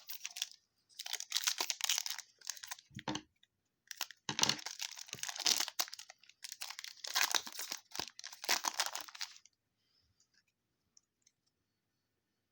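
Plastic wrapper of a trading-card pack being torn open and crinkled in several rustling bursts, going quiet for the last three seconds or so.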